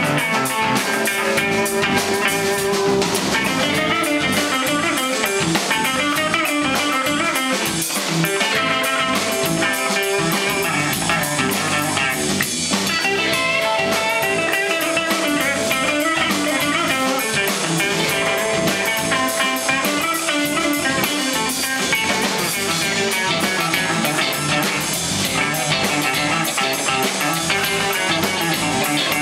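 Live band playing: an electric guitar takes the lead over a drum kit, with several long held guitar notes in the middle of the passage.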